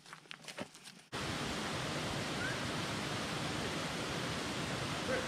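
Footsteps on a dirt path for about a second, then an abrupt change to the steady rush of a small creek cascade pouring into a pool.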